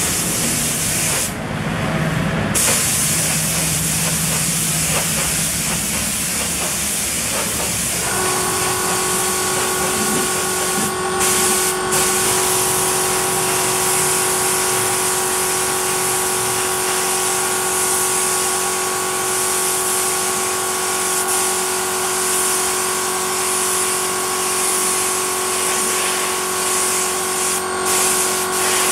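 Air-fed gravity-cup spray gun hissing as it sprays green base-coat paint onto a motorcycle fuel tank, with short breaks where the trigger is let off, the longest about a second in. A steady hum of several tones comes in about eight seconds in and runs under the hiss.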